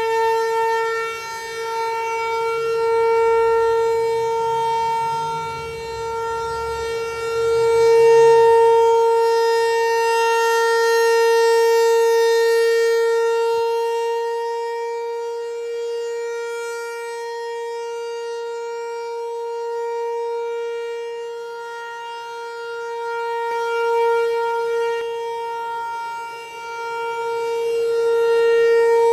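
Outdoor tornado warning siren sounding its weekly test: one steady, sustained tone that holds its pitch while its loudness slowly swells and fades every several seconds.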